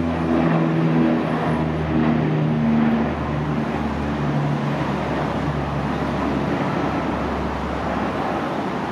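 Twin turboprop engines and propellers of an ATR 72-212(F) at takeoff power as it climbs away: a steady propeller drone with a few low hum tones that give way, about halfway through, to a broad rush that slowly fades as the aircraft draws off.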